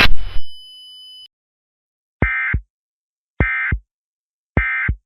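Three short, identical bursts of Emergency Alert System digital data tones, about a second apart: the SAME end-of-message code that closes an EAS broadcast. Just before them, a loud noisy sound cuts off at the start and a faint high tone fades out about a second in.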